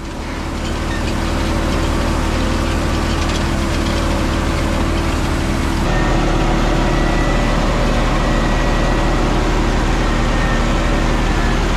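Tractor engine running steadily at a constant pitch, growing louder over the first second or so, with a slight change in its note about six seconds in.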